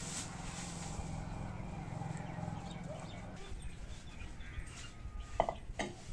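Open-air ambience: a steady low rumble with faint animal sounds. Near the end come two sharp knocks, a terracotta clay bowl being set down on a concrete counter.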